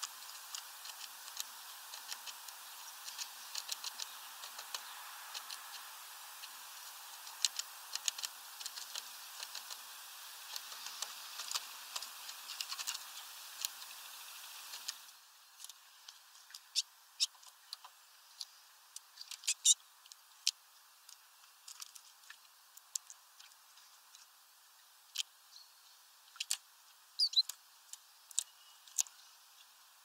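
Small songbirds, a European goldfinch and then a great tit, at a plastic tub of water: sharp irregular clicks and taps of feet and beaks on the plastic rim, and light splashing as the great tit bathes near the end. A steady hiss lies under the first half and stops abruptly about halfway through.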